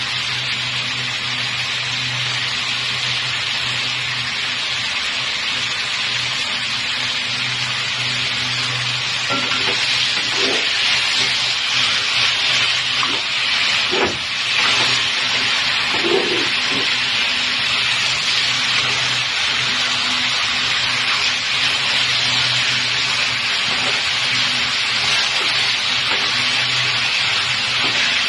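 Raw chicken pieces sizzling in a hot pan over onions, a steady hiss that grows louder about a third of the way in. Around the middle a spatula stirs and turns the meat, with scattered scrapes and knocks against the pan. A steady low hum runs underneath.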